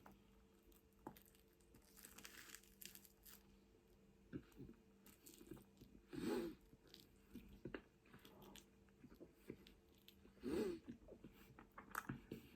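Close-up eating sounds: faint chewing, mouth clicks and soft crunches, with two louder brief mouth sounds, about six and ten and a half seconds in.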